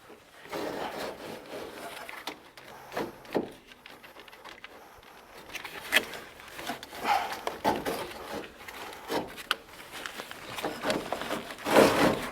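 A new air filter being slid into the filter slot of a home air handler: irregular scraping and rubbing of its frame against the housing, with scattered light knocks and a louder cluster of them near the end.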